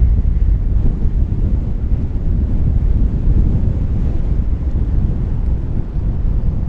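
Strong wind of about 20 mph buffeting the microphone as a steady low rumble, over choppy water with whitecaps.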